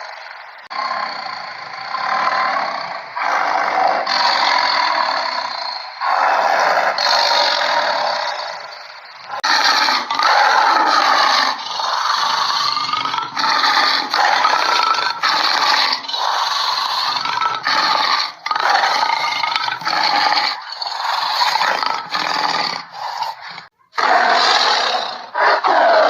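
Bengal tiger roaring and growling: a run of calls broken by short gaps.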